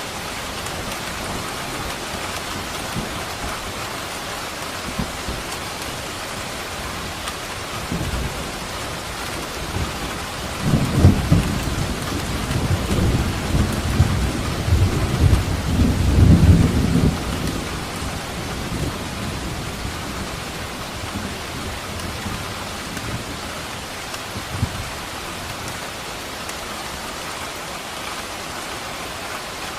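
Steady heavy rain, with a roll of thunder rumbling low from about ten seconds in for some eight seconds, loudest near its start and again near its end.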